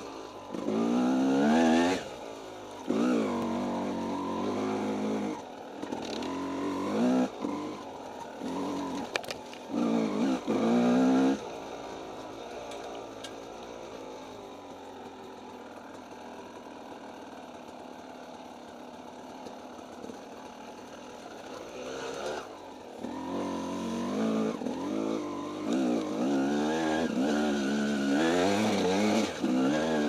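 Yamaha dirt bike engine revving up and down in short bursts under the rider's throttle, easing to a lower, steady run for about ten seconds in the middle before revving in bursts again.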